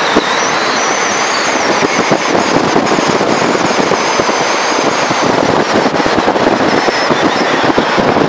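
Heavy wind buffeting on the microphone of a camera riding on a mountain bike descending at high speed, a loud, crackling rush of noise. A faint, wavering high whistle sits over it for the first half or so.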